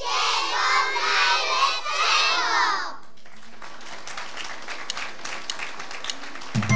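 Several children's voices for about three seconds, then scattered clapping from an audience. Near the end, a music track with tinkling tones and a bass line starts up.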